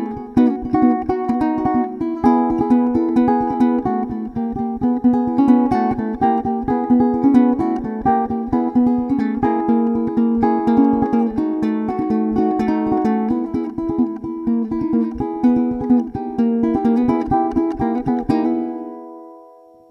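W J Herringe baritone ukulele fingerpicked: quick plucked melody notes over a picked bass. Near the end the playing stops on a final chord that is left to ring and fade away.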